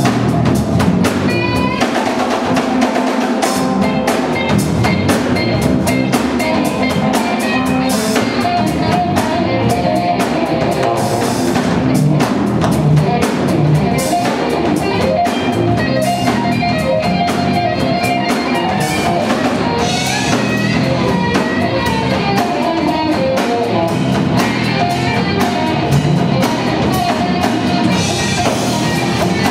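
Instrumental rock trio playing live: electric guitar over bass guitar and drum kit. The low end drops away for a moment about two seconds in, then the full band comes back.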